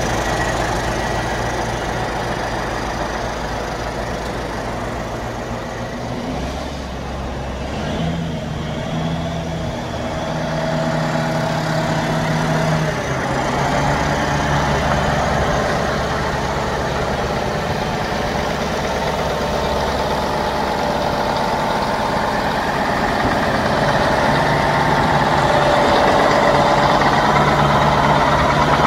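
Heavy diesel engine of a Kirovets tractor idling, its speed stepping up and down a few times.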